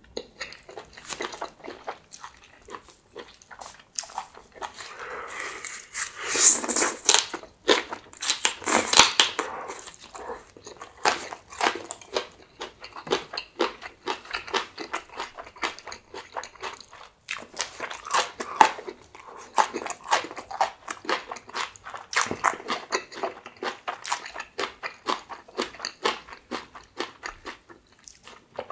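Close-miked eating sounds: a person biting and chewing food, with many small wet clicks and crunches. The loudest stretches come about six to seven and nine seconds in.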